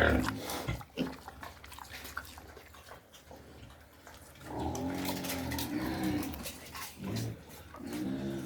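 Pigs grunting and whining: a sharp loud squeal at the start, then long pitched grunting calls about halfway through, with shorter ones near the end.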